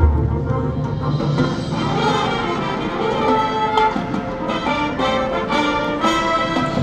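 High school marching band playing, with the brass section holding full sustained chords over the front ensemble. A deep low boom sounds right at the start.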